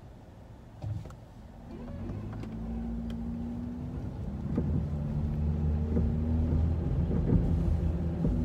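Car engine and road noise heard inside the cabin: a short thump about a second in, then a low hum that grows louder as the car gets moving and settles into a steady drone with a few light clicks.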